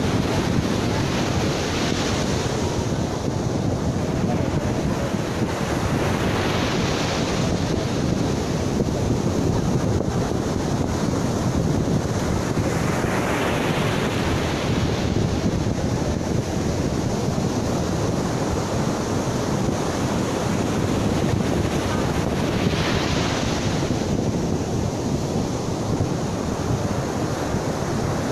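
Ocean surf breaking and washing up the beach, swelling about four times as waves come in, over a steady low rumble of wind on the microphone.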